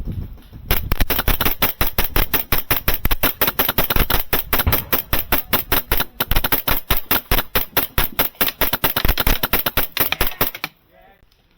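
Airsoft gun firing on full auto in a long, unbroken stream of rapid, even shots that starts about a second in and cuts off suddenly near the end.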